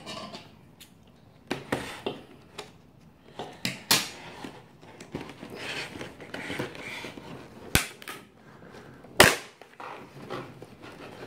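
Clear plastic clamshell blister pack being pried open by hand: the plastic crinkles and flexes, with several sharp snaps as it gives, the loudest about nine seconds in.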